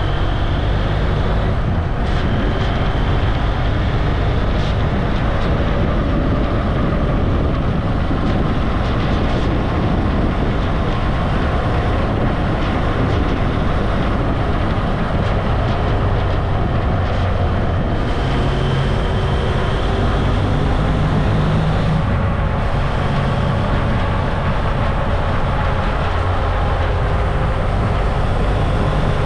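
Motorcycle engine running steadily under wind noise while riding at road speed, the engine note rising and falling slightly.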